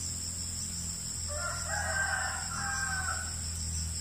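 A rooster crowing once, one call of about two seconds starting a little over a second in, over a steady high-pitched drone of insects.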